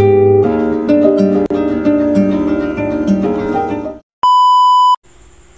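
Background music with plucked, harp-like notes that stops about four seconds in. It is followed by a loud, steady electronic beep that lasts under a second.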